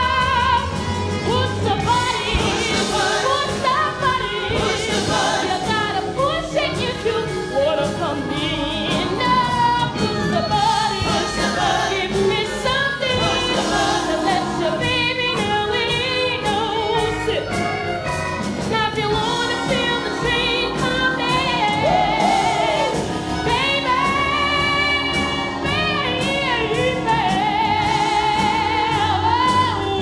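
A woman singing the lead in a live stage-musical number, with a wide vibrato, over band accompaniment.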